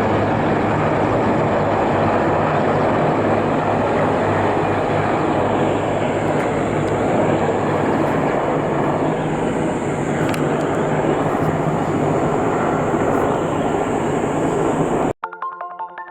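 Black Hawk helicopters flying over: a loud, steady rotor and turbine roar. It cuts off abruptly about a second before the end, replaced by light music with plucked notes.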